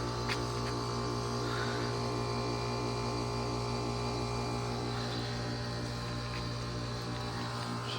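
2015 Carrier Comfort 5-ton heat pump outdoor unit running with a steady deep hum, with faint hissing and light ticks over it.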